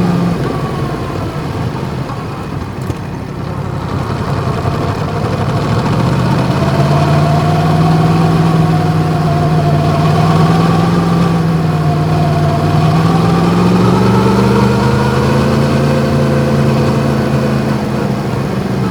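Yamaha MT-10's crossplane inline-four with an Akrapovič exhaust running under light throttle while riding: quieter and rougher for the first few seconds, then a steady engine note from about six seconds in that drifts up and down with the throttle and rises a little near the end.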